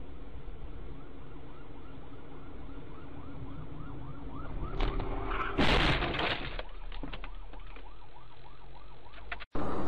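An emergency-vehicle siren sounds in quick repeated rising sweeps over a car's steady low engine hum. About five and a half seconds in comes a sudden loud crash.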